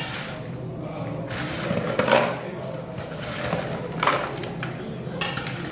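Popcorn being scooped off a stainless steel tray with a paper cup and a metal spoon: short scraping, rustling strokes, two of them about two seconds apart, over a steady low hum.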